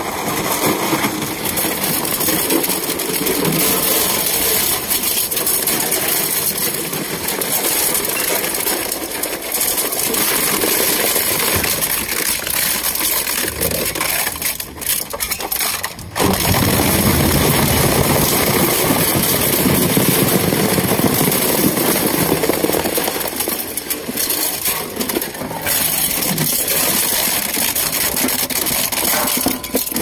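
Twin-shaft industrial shredder running under load, its cutter discs crushing refrigerator plastic, foam and metal with loud, continuous cracking and crunching. The noise drops briefly about halfway through, then comes back as loud.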